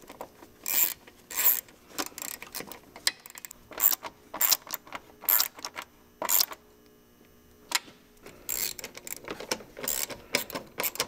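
A hand ratchet wrench clicks in short bursts, with pauses between them, as it drives in the screws that hold the plastic fan shroud to the radiator.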